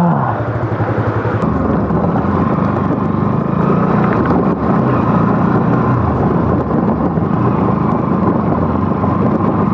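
Motorcycle engine running under the rider, picking up about a second and a half in as the bike pulls away, then holding a steady note while riding along a wet dirt track.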